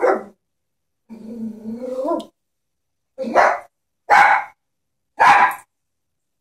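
Small Chihuahua barking: one bark, then a drawn-out growl lasting about a second, then three sharp barks about a second apart.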